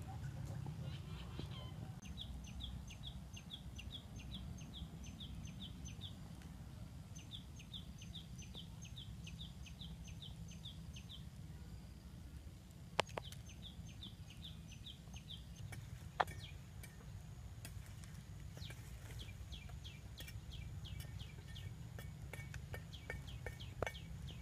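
A bird calling a run of short, repeated high notes at about two or three a second, in several bouts of a few seconds with pauses between, over a steady low background rumble. Two sharp knocks come about halfway through.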